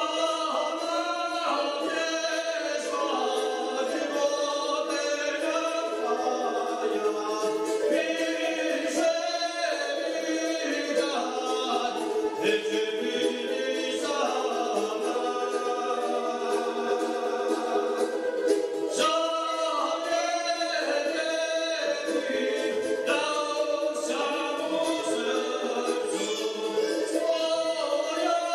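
Serbian traditional wind-instrument tune: a highly ornamented melody played over a steady, unbroken drone.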